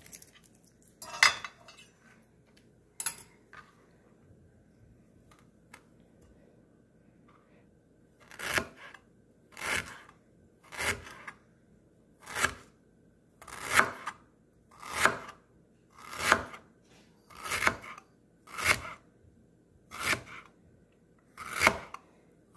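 Kitchen knife cutting fresh ginger on a cutting board. A couple of single cuts come early, then after a pause a steady run of about a dozen cuts, roughly one a second.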